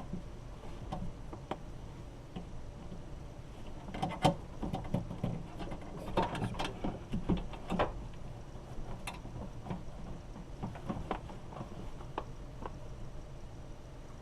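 Irregular clicks, taps and clattering of parts being handled and fitted inside a car door, thickest around four and seven seconds in.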